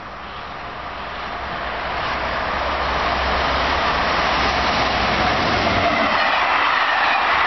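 SNCF BB 26000-series electric locomotive hauling passenger coaches, approaching at speed and passing close by: a rush of wheels on rail that swells over the first three seconds, then stays steady and loud as the coaches run past.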